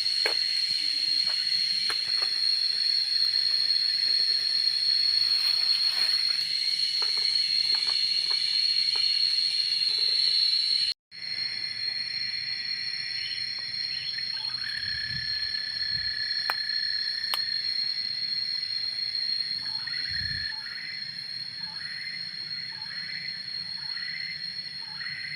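Steady high-pitched drone of insects calling outdoors, broken off briefly partway through. In the second half it is joined by a held whistle-like call and then a run of short repeated chirps.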